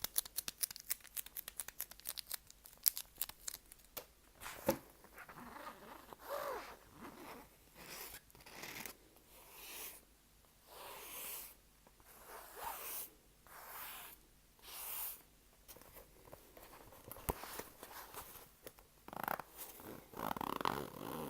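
Close-miked ASMR trigger sounds: a quick run of small sharp clicks, then a series of separate rasping strokes, each about a second long with short pauses between them.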